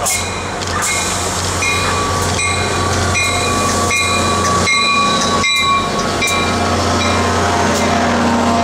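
Diesel-hauled commuter train passing close by: the locomotive's engine running with a steady low hum, a bell ringing about twice a second, and wheels knocking over the rail joints as the coaches go by.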